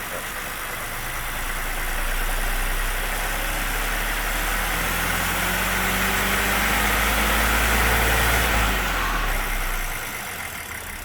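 2021 Ford ST's engine revved up from idle, held at raised revs with the pitch creeping slowly higher, then let back down to idle near the end. It is run this way to bring out a rattle that a Ford dealer's service department could not trace.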